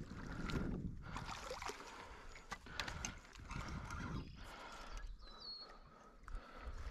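A hooked channel catfish thrashing and splashing at the surface of shallow river water, in irregular bursts.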